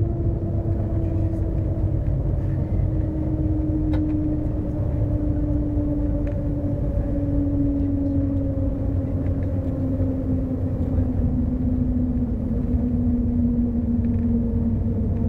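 Cabin noise aboard the Shanghai Transrapid maglev train: a steady low rumble with a whine whose pitch falls slowly and evenly as the train slows toward the station.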